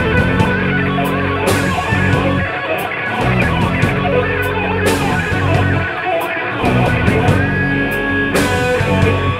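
Rock band playing live: electric guitar, bass and drum kit, with cymbal crashes every few seconds.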